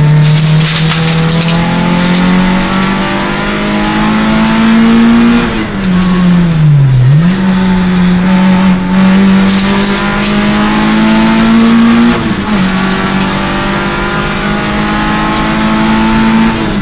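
Peugeot 106 rally car's engine heard from inside the cabin, pulling hard through the gears: the revs climb steadily, fall away about five and a half seconds in and pick up again a second and a half later, then drop briefly at gear changes about twelve seconds in and near the end. Tyre and road noise runs underneath.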